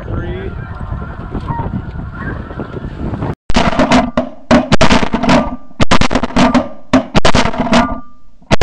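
A din of snow goose calls from the decoy spread's electronic callers and the flock overhead. About three and a half seconds in it cuts off, and loud music with a strong drum beat takes over.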